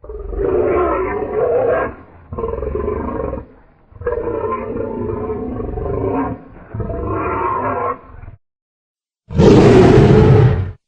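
Custom Majungasaurus dinosaur sound effects: four drawn-out roars in a row, then, after a short pause, one louder and harsher roar near the end.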